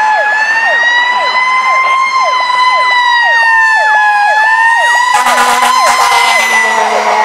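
Fire-rescue truck's Federal Q mechanical siren wailing, slowly rising and falling, with a second, electronic siren cycling in quick falling sweeps about three times a second over it. About five seconds in, the truck's air horns blast in pulses over the sirens.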